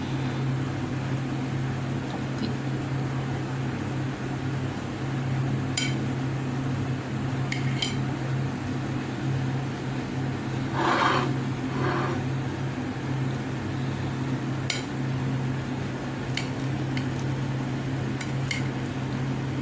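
A knife clicking now and then against a ceramic plate as a soft steamed cake is sliced, with a couple of short scrapes near the middle. A steady low hum runs underneath.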